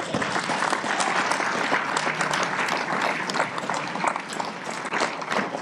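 Audience and panel applauding, many hands clapping at once; it starts abruptly and begins to fade near the end.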